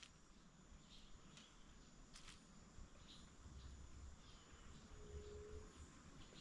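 Near silence: faint creekside ambience with a steady high-pitched insect drone and a few faint ticks.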